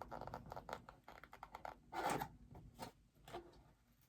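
Bobblehead box packaging being handled and opened: a run of small scratches, then a louder scrape about two seconds in and one more short one a second later.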